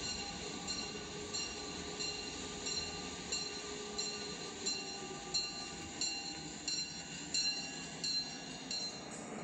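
LEGO toy train running on plastic LEGO track: a steady motor hum with a regular click about one and a half times a second as the wheels cross the track joints, the clicks growing louder as the train draws near.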